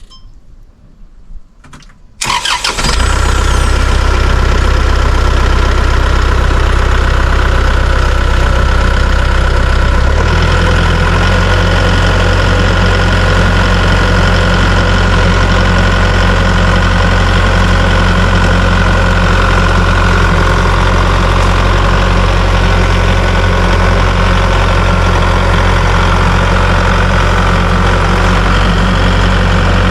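Tractor engine starting suddenly about two seconds in, then running steadily; its low note changes speed about ten seconds in.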